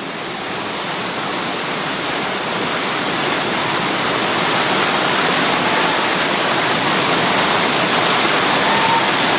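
Whitewater river rapids rushing, a steady dense wash of water that grows gradually louder.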